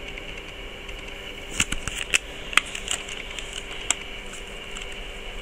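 Clicks and taps of a clear plastic makeup case being handled, several sharp clicks over about two seconds, over a steady background hum.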